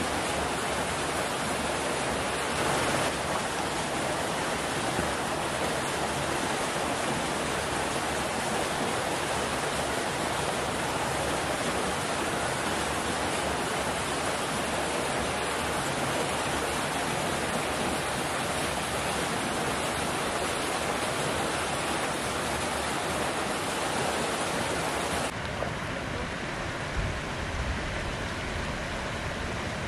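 Water pouring steadily from an inflow pipe into a concrete trout raceway, a constant rushing splash. It cuts off suddenly near the end, leaving a quieter open-air hush with a few low gusts of wind on the microphone.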